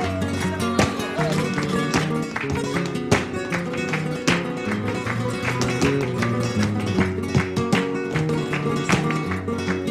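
Flamenco guitar music with frequent sharp, percussive accents.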